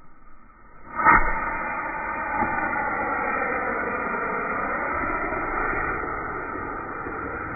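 Two firework rockets strapped to a small plastic toy tractor catch about a second in with a sudden loud onset, then burn with a steady rushing hiss.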